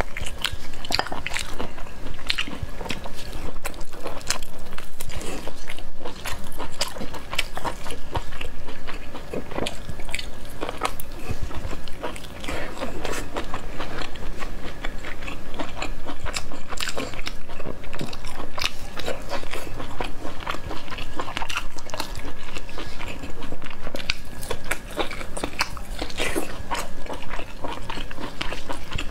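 Close-miked biting and chewing of spicy beef rib meat: a dense, continuous run of sharp clicks.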